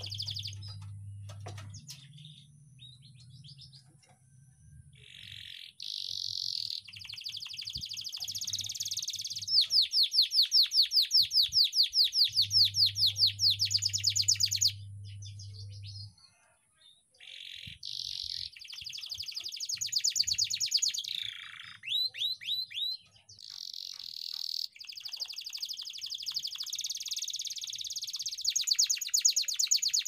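Canary singing a long, varied song of rolling trills and fast repeated notes, broken by a few short pauses. From about ten to fifteen seconds in it sings a loud run of evenly repeated down-sweeping notes, about four a second.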